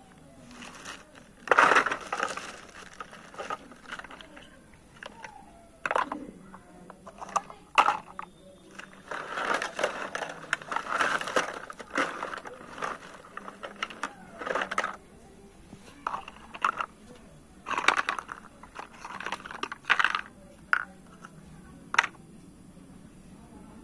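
Plastic bag crinkling and hollow plastic toy dishes and utensils clattering as they are handled and set down, with sharp knocks scattered throughout.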